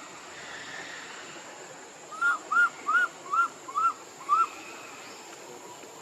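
An animal calling a quick series of six short, arched notes, about two and a half a second, over a steady high hiss.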